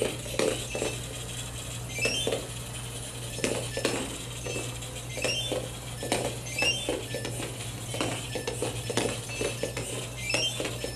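Pololu 3pi line-following robot running: short high beeping notes from its small onboard buzzer in quick stepped runs, recurring every second or two, over the irregular clicking and rattling of its small gearmotors and wheels as it drives and turns in place.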